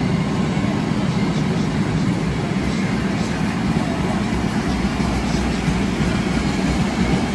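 Freight train of loaded car-carrier wagons rolling past at the platform: a steady rumble of steel wheels on the rails.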